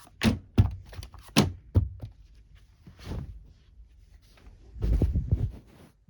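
A series of thuds and knocks. About five sharp ones come in the first two seconds, then fainter scattered taps, then a quick run of low thumps about five seconds in.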